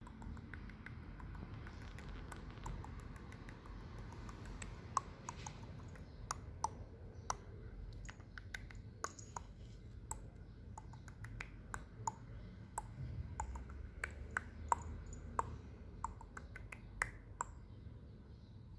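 Tongue clicking by a person calling a kitten: a string of sharp, irregular clicks, roughly two a second. They are faint at first and grow clear and louder about five seconds in, stopping shortly before the end.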